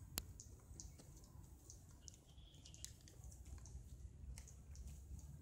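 Near silence: a faint low rumble with scattered small clicks, one sharper click just after the start.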